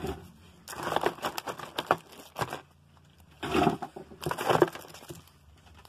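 Packaging rustling and crinkling, with small clicks and knocks, as items are taken out of a cardboard box. It comes in two spells, about a second in and again near the middle.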